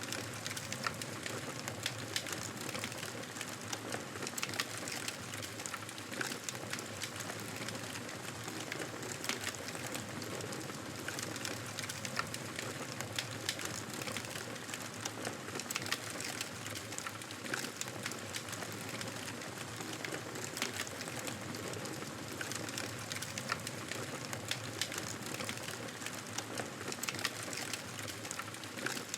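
Wood campfire burning steadily, with a soft hiss and frequent irregular crackles and snaps.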